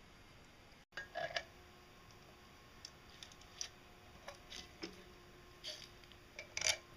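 Scattered small clicks and taps of hard plastic parts being handled and fitted together by hand, over a faint steady hum. The sound drops out for an instant just before a second in, and the loudest click comes near the end.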